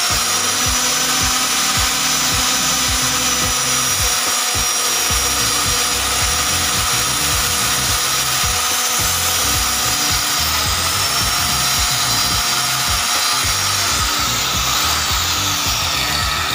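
Handheld electric circular cutter running at speed with its blade in the cut, grooving the edge of a laminated plywood cabinet door for a G-profile handle: a steady high whine over cutting noise. The whine dips a little partway through and sags near the end as the cut finishes.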